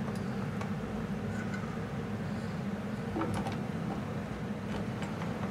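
Model steam locomotive running slowly along the layout track: a steady low hum, with a few light clicks about three seconds in.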